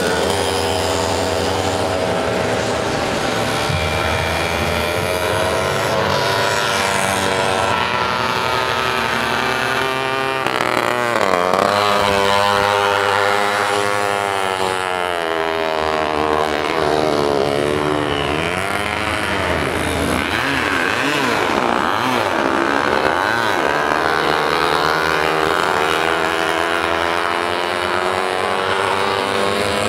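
Small moped engines racing, their pitch rising and falling as the bikes rev and pass, with several engines running over one another.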